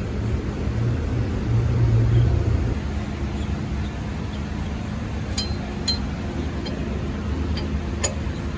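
A steady low mechanical hum, like an engine running, is louder for the first few seconds. Later come a few light metallic clinks, at about five and a half, six and eight seconds in.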